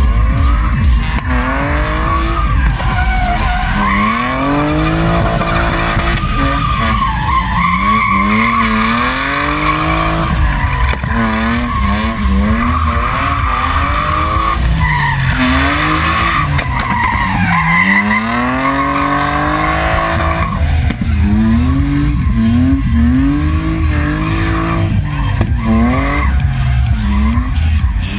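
Drift car's engine revving up and falling back again and again as the car slides through drifts, with its tyres squealing and skidding on the asphalt through most of it.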